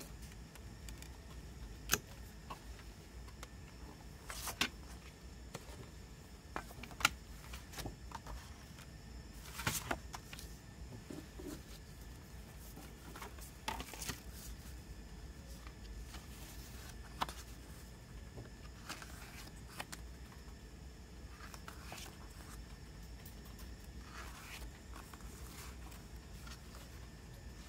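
Quiet handling sounds of a Blu-ray package: scattered single clicks and taps from the clear plastic disc case and brief rustles of paper as printed inserts and a photo booklet are moved and opened.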